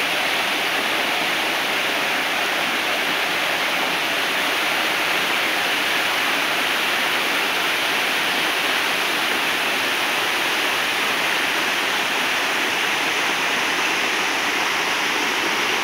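Waterfall pouring over rock ledges: a steady, even rush of falling water.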